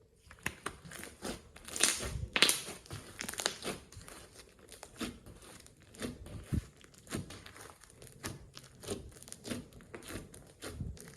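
Slime being squeezed and kneaded by hand, giving a dense run of crackling, crinkling clicks and pops, loudest about two seconds in.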